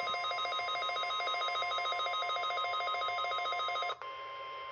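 NOAA Weather Radio's steady 1050 Hz warning alarm tone, announcing a warning. Over it, a weather radio receiver's alert beeps in a fast pulsing two-note pattern, about eight pulses a second. The beeping stops about four seconds in, and the steady tone carries on alone.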